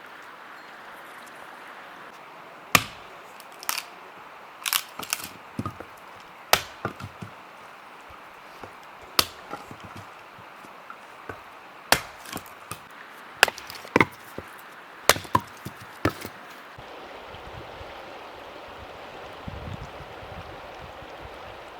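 Wood being chopped: a string of sharp, irregular blows, about fifteen in all, that stop several seconds before the end, over a steady hiss.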